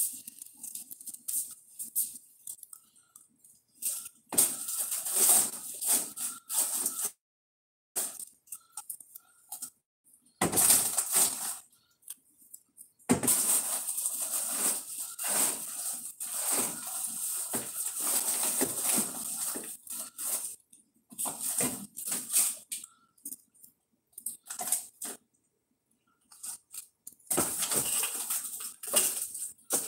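Groceries being handled and put away: rustling, rattling and clattering in stretches of a few seconds, with quiet gaps between them.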